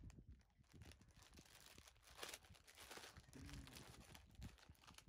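Faint crinkling of a thin plastic bag being handled and pulled open around a cake.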